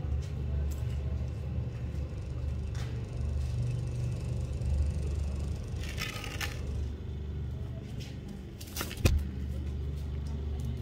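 A steady low rumble, with a brief scratchy rustle about six seconds in and a single sharp knock about nine seconds in.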